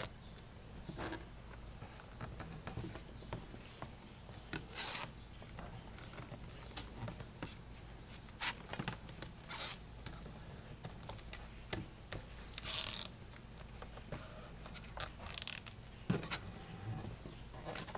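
Hands rubbing and pressing a ribbed rubber step tread down onto a running board's double-sided tape: scattered short scrapes and swishes, several seconds apart.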